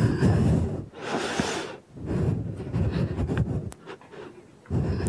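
A woman breathing hard from exertion while holding a plank and lifting one leg: a few long, noisy breaths, one of them a strong, airy exhale.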